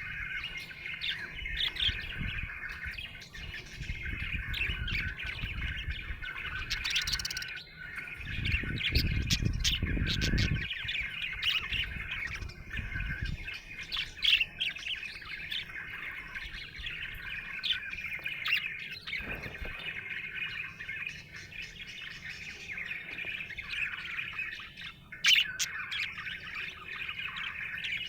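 Budgerigar chirping and warbling without a break, a busy stream of short high chirps of a contented bird. A low rumble runs underneath through the first half.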